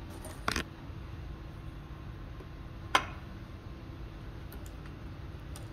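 Two small handling clicks as fabric is worked into a sewing machine's metal ruffler foot: a short one about half a second in and a sharper, louder one about three seconds in, over a low steady hum.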